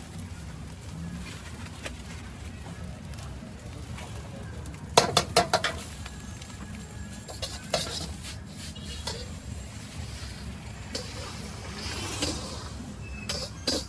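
Stir-frying in a wok: a metal spatula clanging and scraping against the pan over a steady low rumble, with a quick run of four or five sharp clangs about five seconds in and a few single knocks later.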